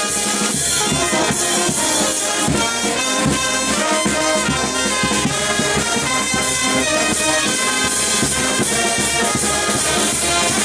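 A brass band playing, with trumpets and trombones over a steady beat.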